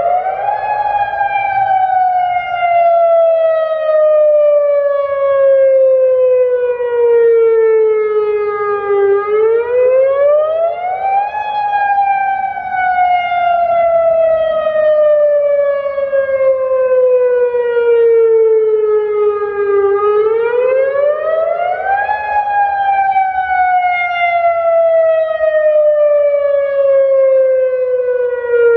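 Federal Signal Modulator 6048 outdoor warning siren sounding a test. Its pitch climbs quickly for about two seconds, then sinks slowly back down for about eight seconds. The cycle repeats twice more, about a third and about two thirds of the way in.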